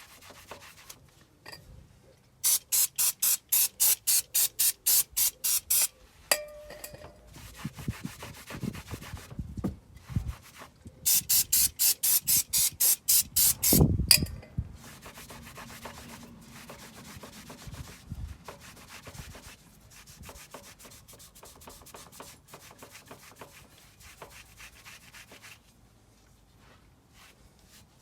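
Hand scrubbing of car parts during cleaning: two bouts of rapid back-and-forth abrasive strokes, about four a second, with a knock at the end of the second bout and quieter handling noises after.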